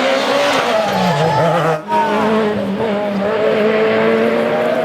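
Super 2000 rally car's naturally aspirated 2.0-litre four-cylinder engine at high revs, its pitch dipping briefly as it lifts off, then running on at a steady pitch. The sound drops out sharply for a moment a little under two seconds in.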